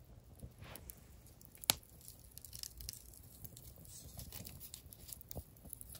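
Wood campfire crackling faintly, with scattered small pops and one sharp snap a little under two seconds in.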